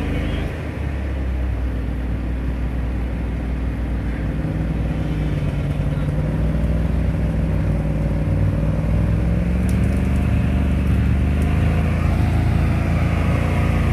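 GAZ-66 truck's engine running steadily as the truck wades slowly through swamp water, getting gradually louder as it comes closer.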